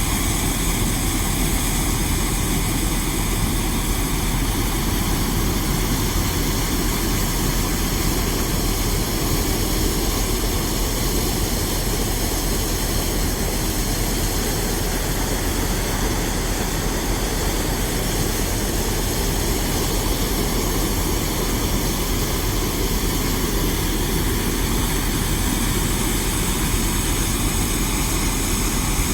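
Heavy construction machinery working on beach restoration, its engines running in a loud, steady, unbroken drone with a low hum and several steady tones.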